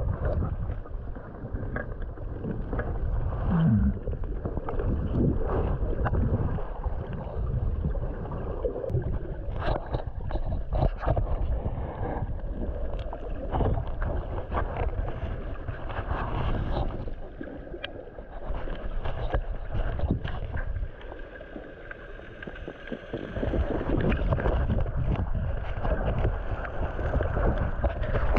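Underwater camera noise in a surging sea: a churning rumble of moving water against the camera housing, with scattered knocks and clicks, easing off for a couple of seconds about three-quarters through.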